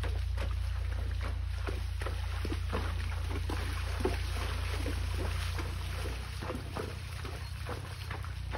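Horse's hooves splashing through shallow creek water at a walk, irregular splashes a few per second, over a steady low rumble of wind on the microphone. The splashing gets a little quieter from about two-thirds of the way in.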